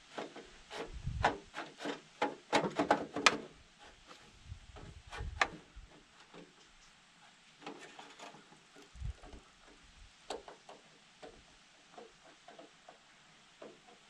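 Hands working parts loose on an Atwood RV furnace: a quick run of light clicks, knocks and scraping in the first few seconds, then scattered ticks and a dull thump.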